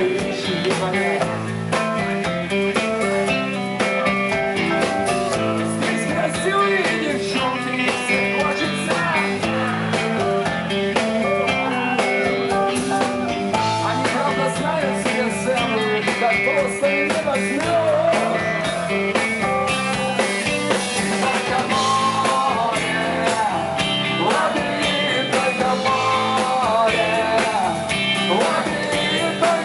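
Live rock band playing an instrumental break: a guitar lead with bending notes over a steady bass and drum beat.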